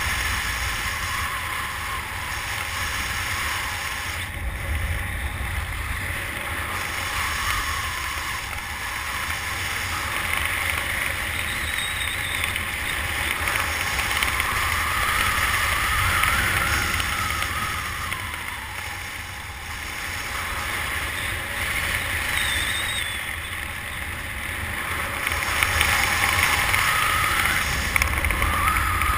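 Wind rushing over the camera microphone during a descent under an open parachute canopy: a steady low rumble with a faint whistle that wavers up and down in pitch, swelling louder near the end.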